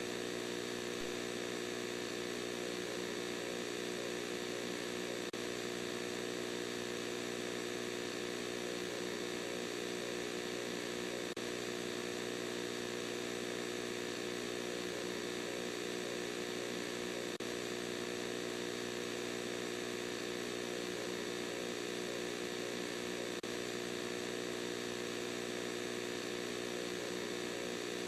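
Steady electronic hum made of several tones held together, unchanging throughout.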